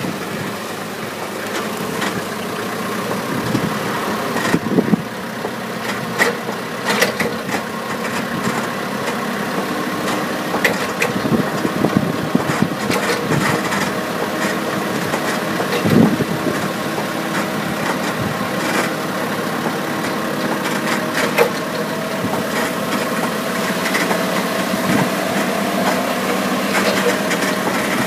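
Truck engine running steadily at low speed, with frequent metal rattles and clunks, one louder knock about halfway through.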